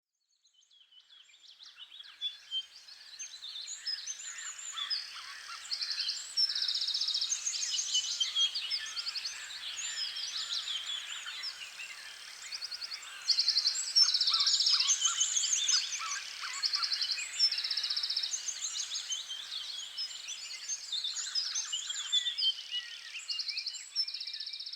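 A chorus of small songbirds singing, with many overlapping chirps, whistles and fast trills. It fades in over the first few seconds and fades out at the end.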